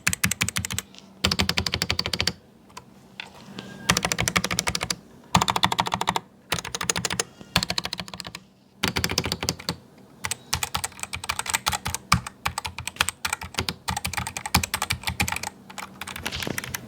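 Typing on a GamaKay MK61 mechanical keyboard with Gateron Optical Yellow linear switches. Fast runs of key clicks come in bursts of a second or two with short pauses, then a longer unbroken run through the second half.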